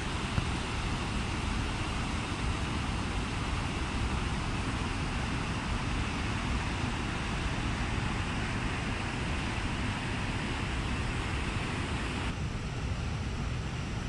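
Waterfall rushing steadily as white water pours down a rocky channel into a pool. Near the end the sound abruptly turns softer and duller.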